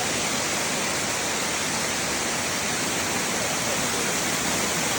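Amicalola Falls waterfall: a steady, even rush of falling water.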